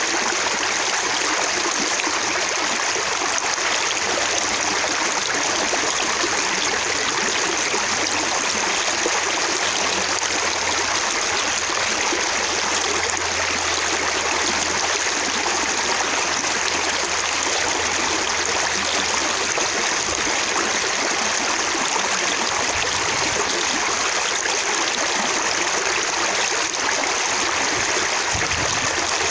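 Running water splashing steadily, with droplets spattering and bouncing.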